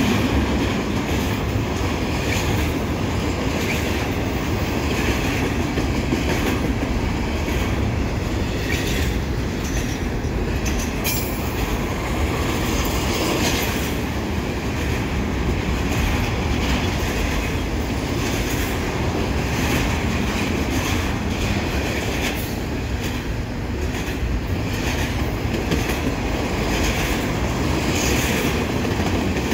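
Double-stack container train's loaded well cars rolling past at steady speed: steel wheels running on the rails with a continuous clatter of clicks.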